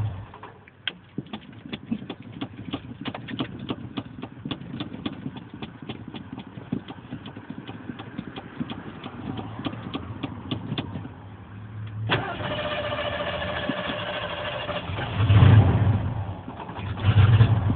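1980 Ford F-100's 302 V8 with a two-barrel carburetor being restarted while flooded. The engine goes quiet, leaving faint rapid clicking for about ten seconds. Then the starter cranks and the engine catches roughly, with two bursts of revving near the end.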